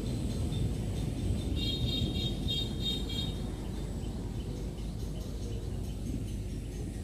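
Outdoor ambience: a steady low rumble, with birds chirping in quick repeated notes between about one and a half and three seconds in.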